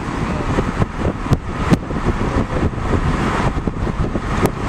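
Road and wind noise of a car driving along, heard from inside the cabin: a steady low rumble and rush, with a few sharp clicks.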